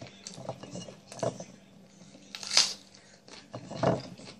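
Eating sounds: a man chewing a mouthful of food and a metal fork clinking on a ceramic plate. A few short louder mouth noises stand out, one hissy about halfway through and one deeper near the end.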